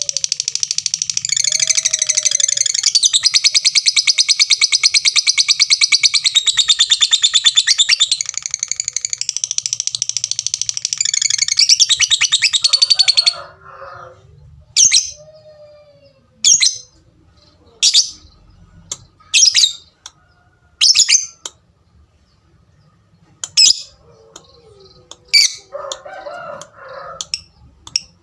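Lovebird singing a long, unbroken, high-pitched chattering song (the "ngekek" that keepers prize) for about 13 seconds. It then breaks off into single sharp chirps about every one and a half seconds.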